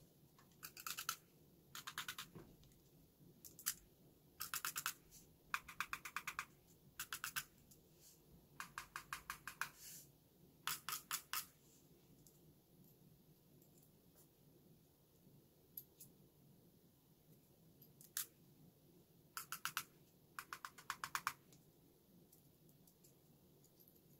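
Metal keyboard stabilizer wire ticking and rattling against a phone's glass screen as its ends are pressed and rocked, in short clusters of rapid faint clicks. The rattle is the sign that the wire is not yet flat: its right side is still lifted.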